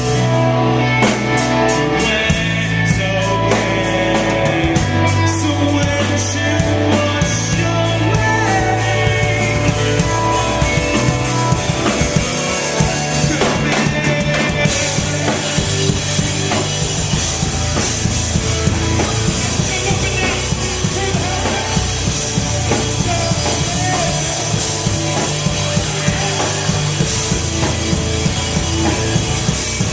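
A rock band playing live, with drum kit, guitar and singing. About halfway through the cymbals come in and wash steadily over the rest.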